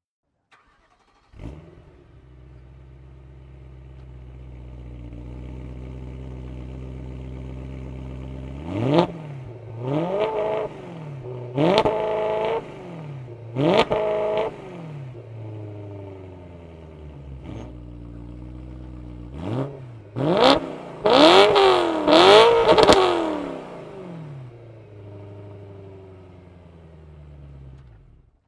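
BMW M3's 4.0-litre S65 V8, breathing through a Macht Schnell X-pipe and modified factory exhaust, starts up and settles into a steady idle. It is then revved in sharp throttle blips: four distinct revs, a few small blips, and a cluster of rapid high revs around twenty seconds in, before dropping back to idle.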